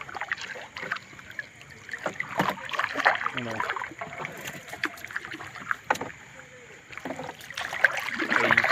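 A wet gill net being hauled by hand over the side of a small boat, with water dripping and splashing off the mesh and irregular knocks and patters as net and sardines come aboard. A voice calls briefly about three seconds in and again near the end.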